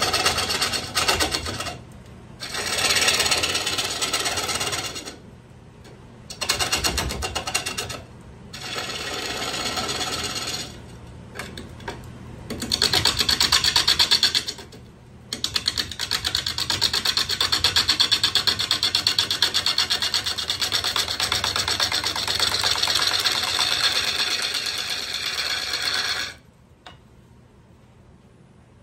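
Turning gouge cutting a red cedar bowl blank spinning on a wood lathe: repeated passes, each a rapid rattling cut lasting a few seconds, the last one about ten seconds long. The blank is still uneven and being rough-turned. The cutting stops near the end, leaving only the lathe's faint running hum.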